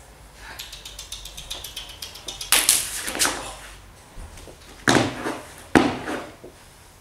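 A rapid run of light ticks, then four loud, sharp percussive hits that ring out in the hall: two close together a few seconds in, and two more about a second apart near the end.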